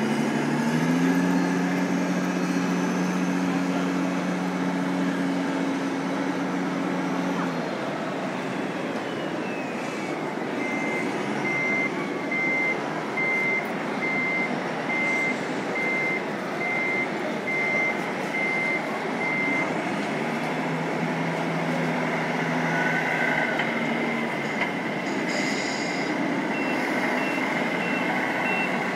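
A radio-controlled model truck's electronic sound unit beeps its reversing alarm steadily, about one and a half beeps a second, for several seconds in the middle, with a fainter beep starting near the end. Low steady droning tones sound at the start and again later, over the general hubbub of a busy hall.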